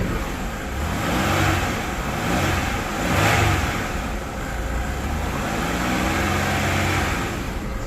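1998 Chevy Venture's 3.4-litre V6 running with head gasket sealer in its coolant, its pitch rising and falling a few times as it is revved, loudest about three seconds in.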